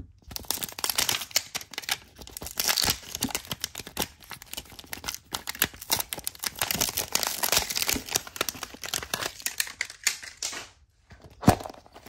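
Plastic wrapping crinkling and tearing with many small crackles as a Zuru 5 Surprise toy capsule ball is unwrapped, then a brief pause and one sharp click about a second before the end.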